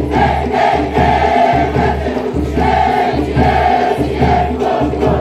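A large group of young voices singing a Cook Islands song together in loud, repeated phrases.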